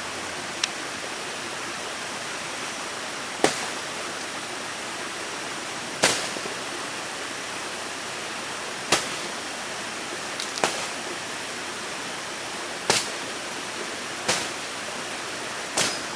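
Steady rushing water of a stream or waterfall, with sharp short knocks every two to three seconds.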